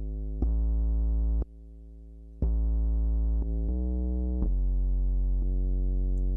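Synthesized bass tone playing a test sequence of held notes, each about a second long, switching abruptly in pitch and loudness; one note is much quieter than the rest. It is heard through a compressor set to an infinite ratio, acting as a limiter on the loud notes.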